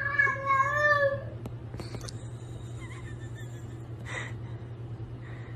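A domestic cat meowing once, a drawn-out wavering call of about a second and a half, over a steady low hum. A few faint clicks and a short rustle follow.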